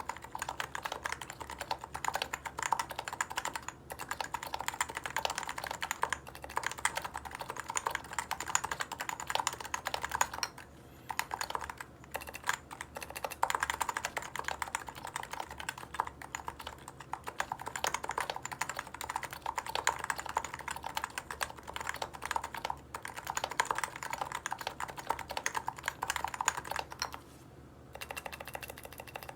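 Continuous typing on a Leopold FC660C keyboard with silenced Topre switches, O-rings removed and lubed with Krytox 103: a steady stream of keystrokes, pausing briefly twice.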